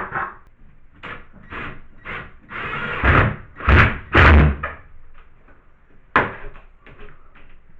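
Workshop handling noises: rustling and sliding, two heavy thumps about three and four seconds in, then a sharp click a couple of seconds later and a few light ticks.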